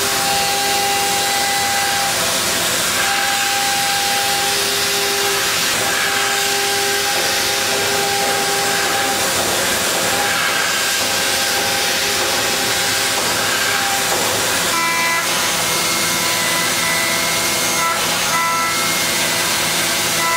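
Kitamura Mycenter-4XiF vertical machining center milling SKD11 tool steel with an end mill: a steady hiss with a whining tone that comes and goes, shifting to higher tones about fifteen seconds in.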